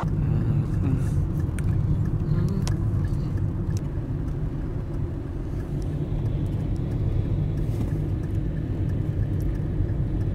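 Steady low rumble of a Renault car's engine and tyres on a wet road, heard from inside the cabin while driving, with scattered light ticks over it.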